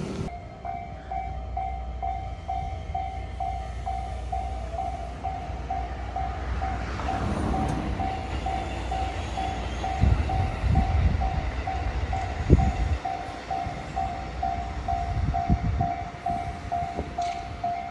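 Japanese level-crossing warning bell starts up just after the start and rings in a steady, even repeating ding. Under it is the low rumble of trains on the tracks, swelling in surges about two-thirds of the way through.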